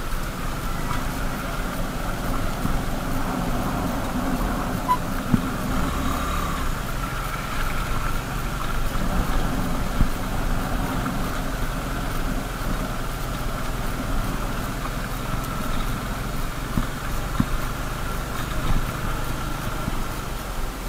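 Motorcycle engine running steadily while riding over a rough dirt and gravel road, with a few sharp knocks and rattles from the bumps.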